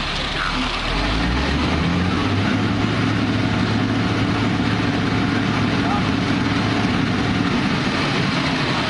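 Concrete mixer truck's diesel engine speeding up about a second in, then running steadily at the higher speed.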